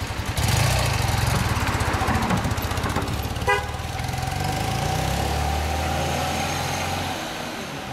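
1977 BMW R80/7's air-cooled flat-twin boxer engine pulling a sidecar rig away, its exhaust rumble rising sharply just after the start and easing off near the end as the outfit rides away. A short horn toot about three and a half seconds in.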